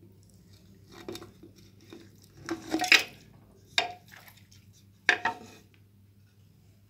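Raw mutton pieces scraped with a wooden spoon from a ceramic bowl into a clay cooking pot: a handful of knocks and scrapes of wood and meat against bowl and pot, the loudest about three seconds in, then two sharp knocks near four and five seconds.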